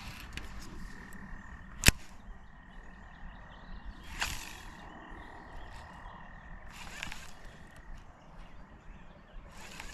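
Frogs calling at the lake's edge, a steady high-pitched call running on under the scene. A single sharp click about two seconds in is the loudest sound, and three short hissing rushes come at roughly three-second intervals.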